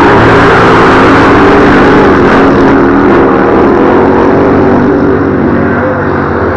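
Vintage flat-track racing motorcycle engines, a 1966 Harley-Davidson KR and a 1941 Indian, running hard as the bikes race around the dirt oval: a loud, steady engine sound that drops off a little near the end.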